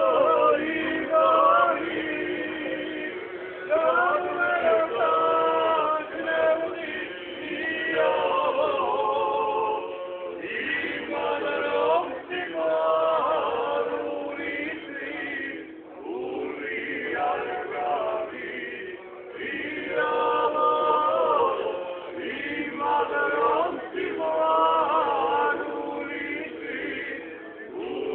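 Several men's voices singing together in harmony, holding long notes in more than one part at once and moving between chords every second or two.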